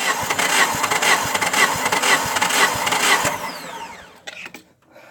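Suzuki Vitara G16B four-cylinder engine cranked on its starter motor with the spark plugs out, for a compression test on cylinder 4. The cranking pulses about twice a second, then winds down with a falling whine a little over three seconds in, followed by a couple of clicks.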